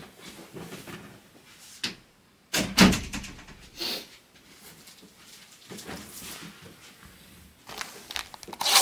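Desk handling noises: a few light knocks, a heavy thump about three seconds in, then plastic rustling near the end as the shrink-wrapped trading-card box is handled.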